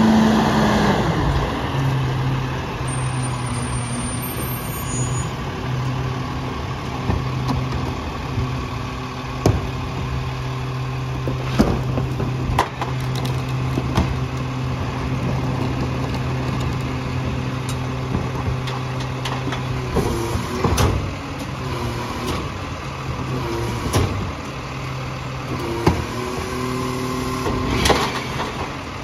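Diesel engine of a Freightliner/McNeilus rear-loader garbage truck slowing as the truck comes to a stop, then idling steadily. Sharp knocks and bangs of a plastic trash cart being handled and dumped at the rear hopper come several times in the second half.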